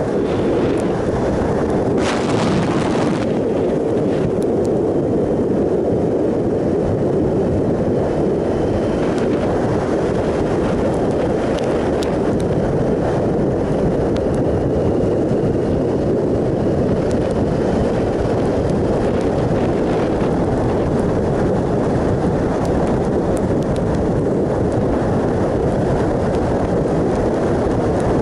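Steady wind rush on the microphone of a Triumph Sprint ST 1050 motorcycle riding along at road speed, with a brief sharper burst of hiss about two seconds in.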